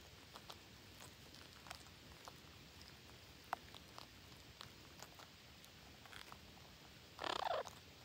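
Red-breasted parakeets pecking and picking at soil and rotten wood: faint, scattered small clicks and scratches, with one brief harsh burst near the end.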